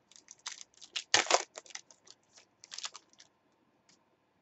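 Trading cards being handled and flicked through by hand: a quick run of dry clicks and rustles, loudest a little after a second in, dying away after about three seconds.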